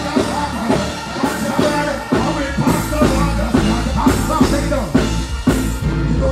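Live reggae band music over a stage sound system: a steady drum and bass rhythm with a voice singing over it.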